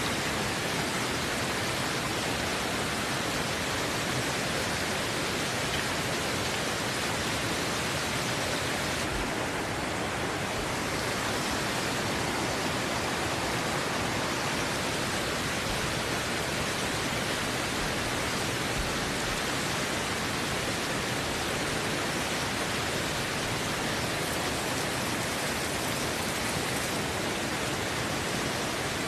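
Steady rushing of a river, an even wash of water noise with no breaks.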